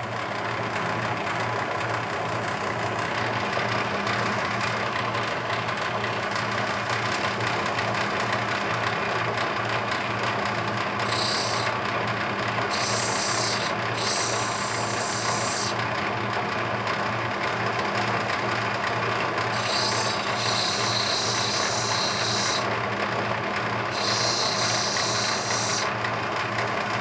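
Lapidary grinding machine's motor running with a steady hum while a rough opal is ground on its water-fed diamond wheel. A harsh hiss comes and goes in several spells of a few seconds each, as the stone is pressed to the wheel.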